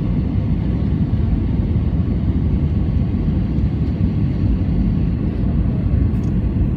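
Steady low rumble of an Airbus A320-family airliner in flight: engine and airflow noise heard inside the cabin.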